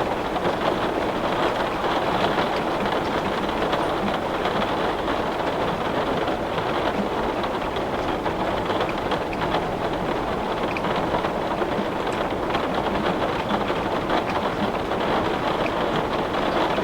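Heavy rain falling steadily on a window, a dense even hiss with many fine drop ticks against the glass.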